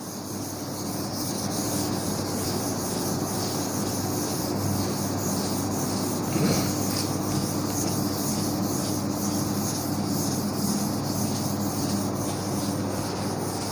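Chalkboard duster rubbing over a chalkboard, a steady scrubbing as a chalk drawing is wiped off.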